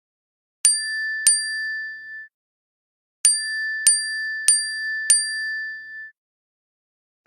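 iPhone notification alert tones: bell-like dings, two quick strikes that ring out, then after a short pause four evenly spaced strikes that ring out the same way.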